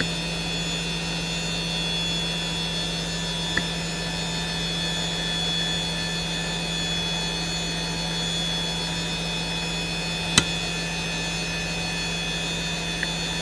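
Hitachi DK32CJ-36MC 10,000 rpm SCSI hard drive spinning steadily, a low hum under a high-pitched whine, with the bearing noise of a well-worn but healthy drive. Three short head-seek clicks break in, the loudest about ten seconds in.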